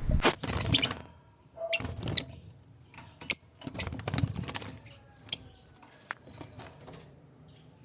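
Lovebirds moving about: scattered clicks, taps and rustles, with a few brief high chirps, busiest in the first half.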